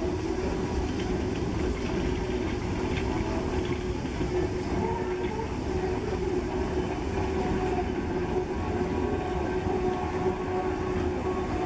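Prussian T 18 (DR class 78) steam tank locomotive 78 468 rolling slowly past with its coaches: a steady rumble of wheels on rail with hissing steam and a steady tone running underneath.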